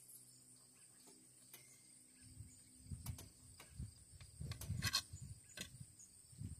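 Knife cutting into a Granny Cantrell tomato at a table: soft low knocks with a few sharp clicks of the blade and fruit against the plate, starting about two seconds in.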